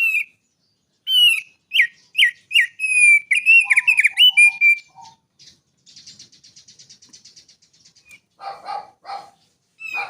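Songbird singing: a quick run of loud, clear whistled notes that slide in pitch, then a dry buzzy trill, then a few harsher, lower notes near the end.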